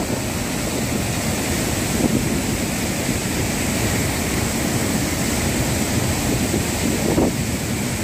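Rain-swollen floodwater rushing and churning in a steady, loud, unbroken rush of water noise.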